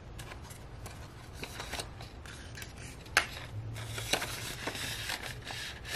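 Paper banknotes being handled and counted: crisp rustling and light flicks of the bills, with one sharp snap about three seconds in.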